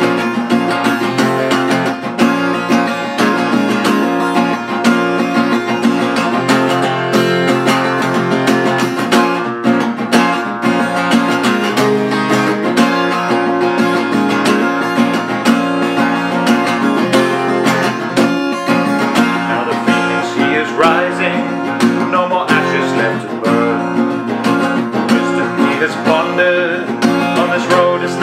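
Solo acoustic guitar played in a steady rhythm of chords, an instrumental passage of a singer-songwriter's song.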